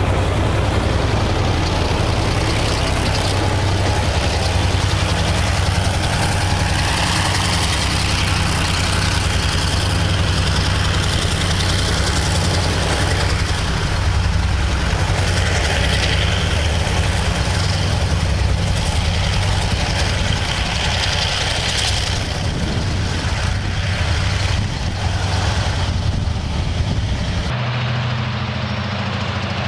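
Freight train passing: wagons rolling over the rails, with the low, steady running of a heavy diesel engine underneath. Near the end the sound changes abruptly, leaving only a quieter low engine hum.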